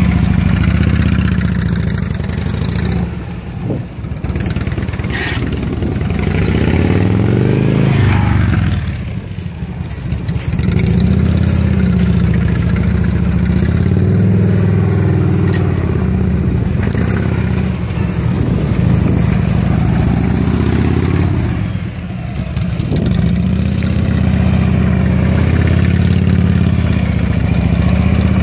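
Harley-Davidson Electra Glide police motorcycle's V-twin engine running at low speed through tight cone turns, the throttle rising and falling over and over. The engine eases off briefly a few times between turns.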